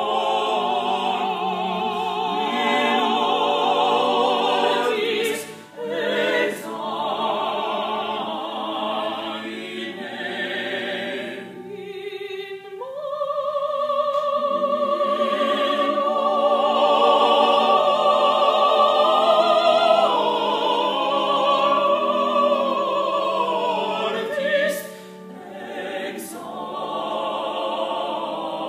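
A mixed vocal quartet of two women and two men singing in parts with vibrato. There are short breaks between phrases, and a long chord is held in the middle.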